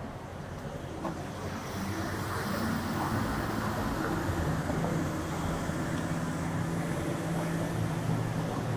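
Street traffic with a motor vehicle's engine running close by. It grows louder about two seconds in and settles into a steady low hum.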